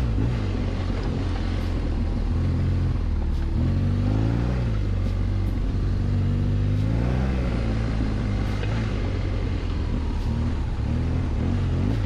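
BMW R1200GS boxer-twin engine revving up and easing off several times as the motorcycle rides a dirt trail, over a steady rush of wind and road noise.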